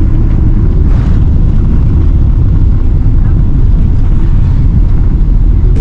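Steady, loud low rumble inside the cabin of a Boeing 777 rolling fast down the runway just after touchdown.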